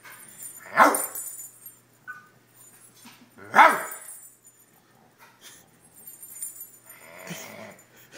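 A dog barking: two sharp, loud barks about three seconds apart, then a fainter bark near the end.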